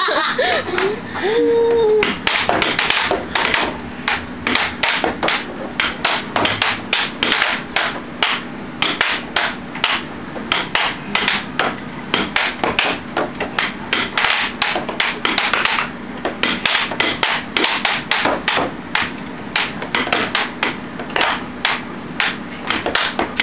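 Air hockey game in play: the plastic puck and mallets clacking, rapid uneven knocks about two to three a second as the puck is struck and rebounds off the table's rails. Under it runs the steady hum of the air hockey table's blower.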